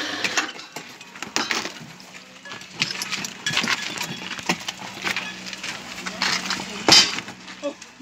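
Irregular knocks, clinks and scrapes of a plastic bucket and wet concrete being tipped by hand into wooden wall formwork, with the loudest knock about seven seconds in. A faint steady low hum runs underneath.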